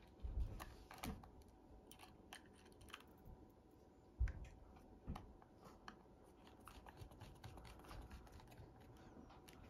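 Faint, scattered small clicks of a precision screwdriver working the screws of a laptop's drive bay and tapping against the plastic chassis, with two soft thumps as hands handle the drive, one about half a second in and one a little after four seconds.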